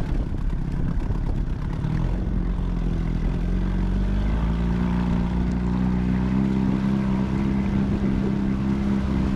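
Outboard motor pushing an inflatable boat at trolling speed, a steady low hum whose pitch rises a little a few seconds in and then holds.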